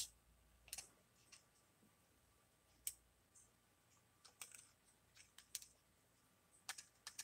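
Scattered faint clicks and light taps of a screwdriver and small plastic parts being handled while a relay board is fitted and screwed into an acrylic housing. The loudest click comes right at the start.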